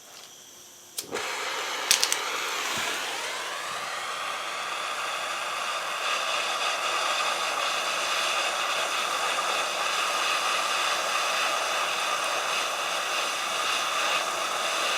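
Gas torch burning with a steady hiss as it heats the radiator for soldering. It starts about a second in, with a few sharp clicks just after, and the flame's sound dips and settles before holding steady.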